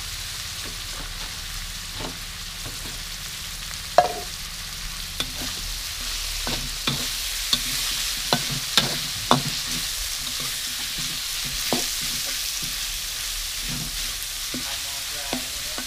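Dried shrimp and minced pork sizzling in oil in a steel wok while a metal spatula stirs and scrapes them, with sharp clinks of the spatula against the wok. The loudest clank comes about four seconds in with a short metallic ring, and the clinks come thick and fast between about six and nine seconds in.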